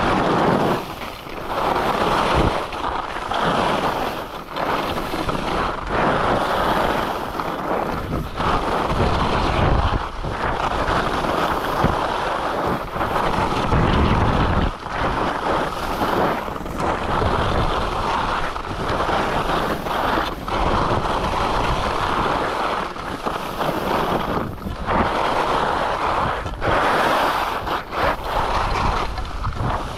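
Skis running down a groomed piste: the edges hiss and scrape on the packed snow, swelling and easing every second or two with each turn, under steady wind rush on the microphone.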